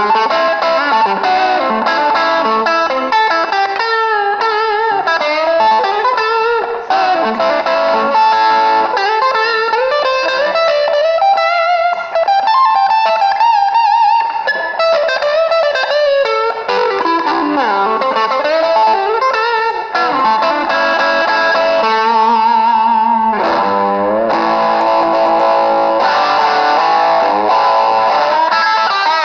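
Maison Les Paul Custom electric guitar played through overdrive: a lead line of single notes with vibrato, climbing in pitch near the middle and with a wavering held note about three-quarters of the way through.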